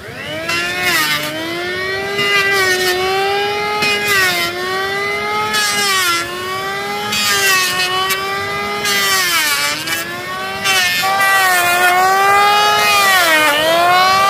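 Electric hand planer running and planing wooden boards: a steady motor whine that sags in pitch each time the blades bite into the wood, with hissing bursts of cutting over several passes. It gets louder about eleven seconds in.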